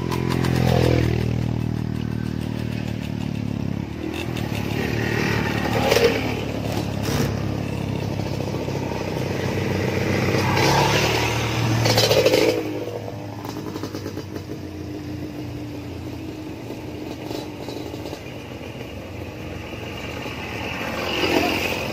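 Dirt bikes riding past one after another on a gravel trail, each engine swelling as it nears and fading as it goes by, about four passes in all, with stones clattering under the tyres.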